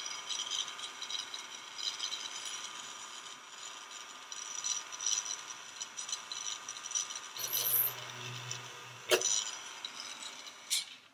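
Small handheld rotary tool running with a steady whine while a 0.3 mm drill bit bores rigging holes into a plastic model hull. Two sharp clicks come near the end, and the motor stops just after.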